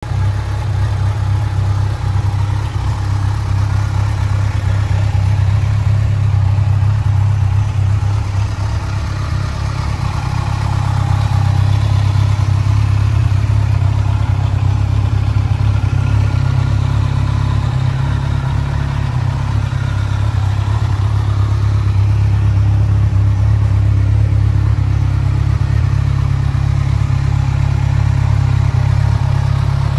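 Kawasaki Z1000SX's inline-four engine idling steadily, a low, even drone.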